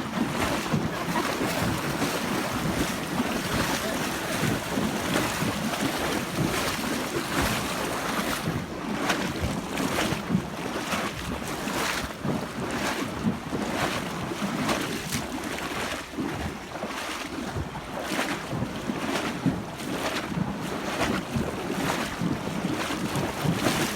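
Horses wading through floodwater, splashing steadily with each stride, with wind buffeting the microphone.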